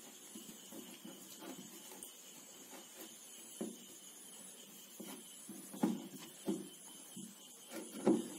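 Fingers working a thick cornflour-and-water mix in a glass bowl: soft, irregular squelches and taps, a few louder ones in the second half.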